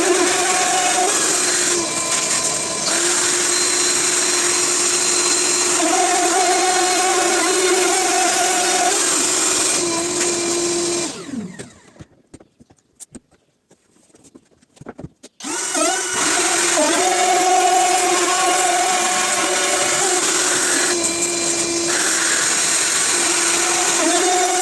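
Einhell TP-RO 18 Li BL cordless brushless router running at high speed and cutting into hardwood, its whine shifting a little with the load. About 11 seconds in it is switched off and winds down with a falling pitch to near silence, then about four seconds later it spins back up and cuts again.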